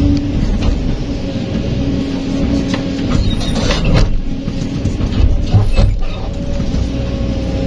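Kobelco SK200 hydraulic excavator's diesel engine and hydraulics running steadily under load, heard from the cab, as the bucket digs into a dirt pile. Sharp knocks and scrapes of the bucket in the soil come around the middle and again a little later.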